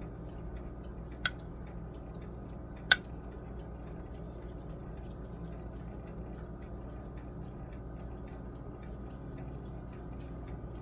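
Fast, even mechanical ticking over a steady low hum, with two sharp clicks about a second and three seconds in, the second one the loudest.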